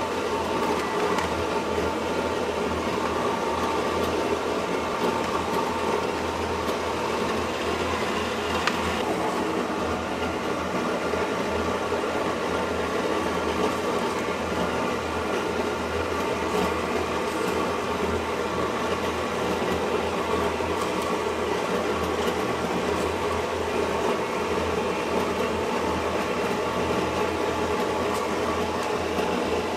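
Steady hum and whir of kitchen machinery, such as fans and refrigeration, at an even level, with a few faint clicks.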